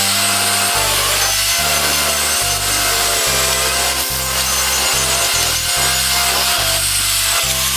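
Loud, steady rasping, scraping noise over background music with a bass line.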